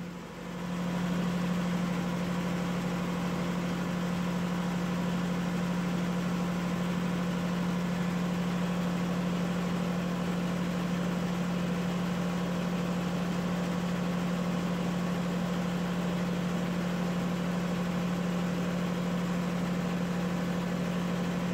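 Steady machine hum with one strong low tone, rising in level about a second in and then holding even.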